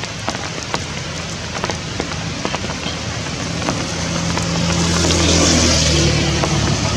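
Rain falling, with many sharp drop hits. From about four seconds in, a motor vehicle's engine hum comes in and grows louder.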